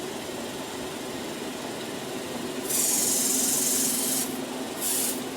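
A facial machine's water spray gun hissing out mist, one burst of about a second and a half, then a short second burst, over the steady hum of the machine's motor.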